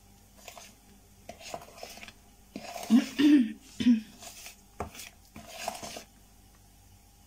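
A spoon stirring thick sponge-cake batter in a plastic mixing bowl, folding in the flour by hand. The spoon makes irregular scrapes and clicks against the bowl, loudest a few seconds in.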